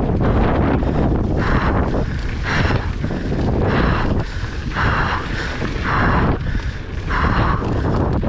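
Mountain biker breathing hard, a rush of breath about once a second, over steady wind noise and low rumble on the action camera's microphone while riding.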